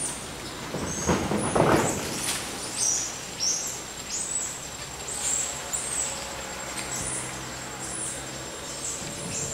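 Animal chirping in the trees: short, high-pitched calls repeating about once or twice a second. A couple of brief noisy bursts come in the first two seconds.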